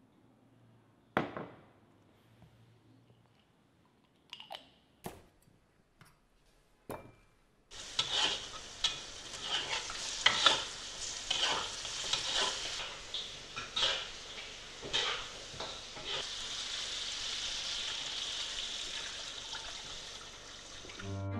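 Chunks of meat sizzling in hot oil in a wok, stirred with a spatula that repeatedly clacks and scrapes against the pan. The sizzling starts about eight seconds in, after a few sharp knocks.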